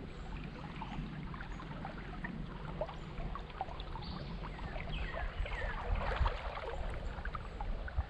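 Creek water splashing and trickling over a low rumble, with the splashing busier and louder about five to seven seconds in.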